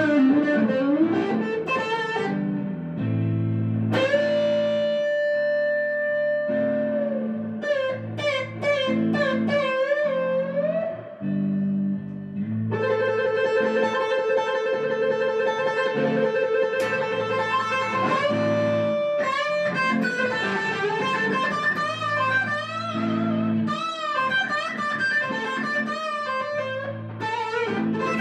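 Background music: a guitar melody of long held notes that bend and waver, over a steady lower accompaniment.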